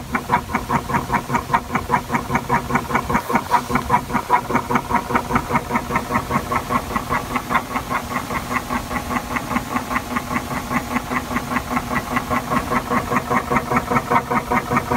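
Hurst motor of a 1984 Acoustic Research turntable running with the belt off, its pulley spinning free, giving a steady hum with a rapid, even clicking several times a second. The clicking is a fault in the motor, which the owner puts down to a tight bearing with old lubricant.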